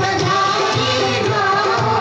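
Indian folk-style music with singing over a steady drum beat.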